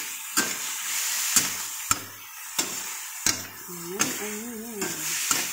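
Metal spatula stirring and scraping food in a stainless steel wok, striking the pan with a sharp clank several times, each less than a second apart. A steady sizzle of frying food runs underneath.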